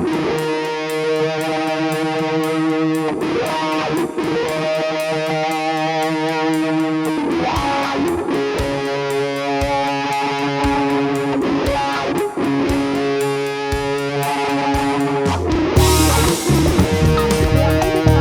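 Instrumental music led by electric guitar, with sustained chords over a fast, even pulse of high ticks. About fifteen seconds in, a heavier low end and a brighter wash of cymbals come in.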